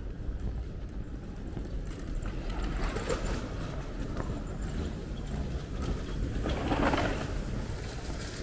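Bicycles rolling over cobblestones close by, one passing about three seconds in and another, louder, about seven seconds in, over a steady low city rumble.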